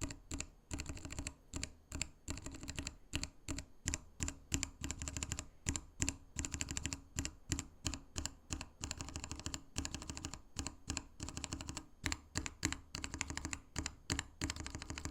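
Typing on a mechanical keyboard fitted with Kailh Box switches: quick, uneven runs of sharp key clicks and clacks with short pauses between runs.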